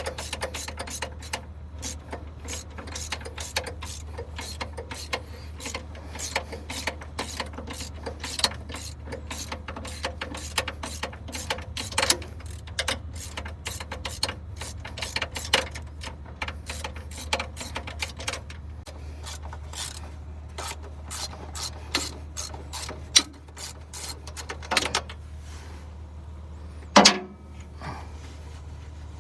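Ratchet wrench clicking in long rapid runs as the starter bolts on a Vermeer BC1500 wood chipper are backed off. The clicks thin out later, with a sharp knock about 27 seconds in, all over a steady low hum.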